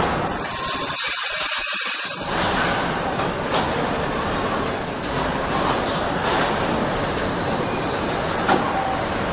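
Car factory assembly-line noise: a loud hiss for about two seconds, then a steady machinery din with scattered sharp clicks.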